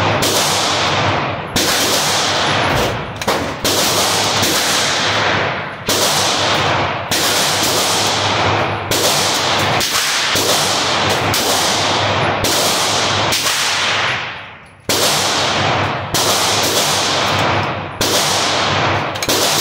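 9mm Glock 17 pistol with a compensator firing in an indoor range, about fifteen shots at an uneven pace roughly a second apart. Each shot trails a long echo off the range walls.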